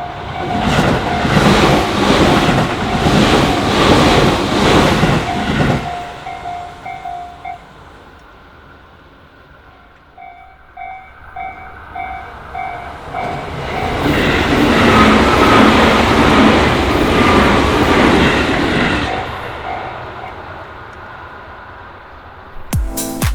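Japanese level-crossing warning bell ringing steadily as a Tobu Noda Line electric train passes with loud wheel clatter. The bell stops, starts ringing again, and a second train passes.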